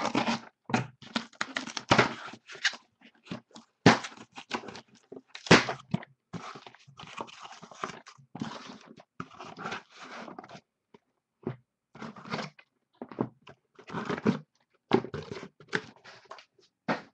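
Cardboard case being cut open and unpacked by hand: scraping, rustling and tearing of cardboard, with sharp knocks about four and five and a half seconds in as the boxes inside are pulled out and set down.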